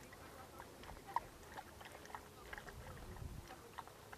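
Faint, irregular wet clicks and smacks of an Airedale Terrier's mouth at a small bottle held to her muzzle, with a few soft low thumps about three seconds in.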